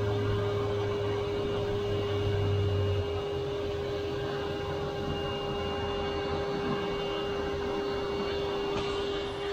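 Shop vac running steadily with a constant whine, its hose sealed over the tractor's hydraulic fill port to hold the fluid under suction while the hydraulic filter is changed. A deeper hum sits under it for about the first three seconds.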